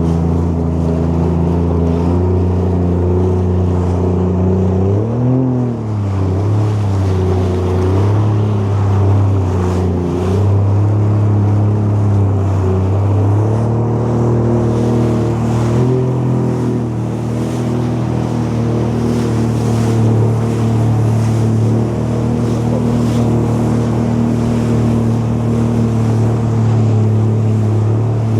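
Jet ski engine running under way, its pitch briefly rising and falling with the throttle about five and sixteen seconds in, over rushing water and wind noise.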